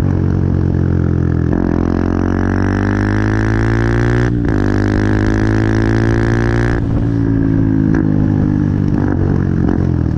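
Benelli TNT 125's single-cylinder four-stroke engine running, its pitch climbing steadily for a few seconds with a brief cut about four seconds in, then dropping back down and settling near the end.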